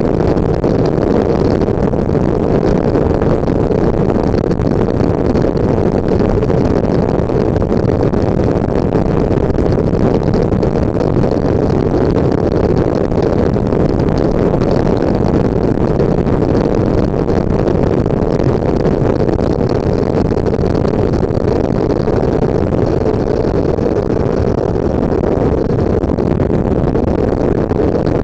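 Steady engine and road noise of a running vehicle, recorded by an ADR36 dashcam's built-in microphone behind a battery cover drilled with holes.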